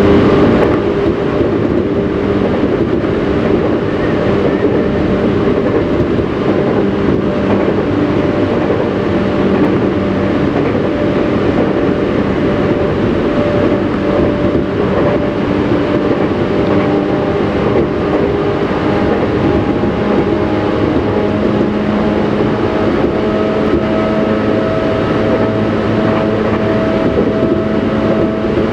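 Tobu Railway electric train running along the line, heard from inside the train at the front: a steady rumble of wheels on rail under several held tones from the traction motors. The tones shift slowly, and higher ones join about two-thirds of the way through.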